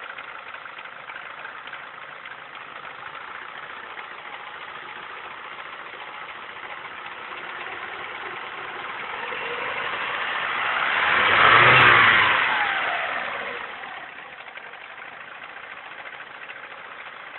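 Ford Zetec-E 2.0 16V engine idling steadily, then revved up once, peaking about twelve seconds in and dropping back to idle a couple of seconds later; the engine has a strange noise.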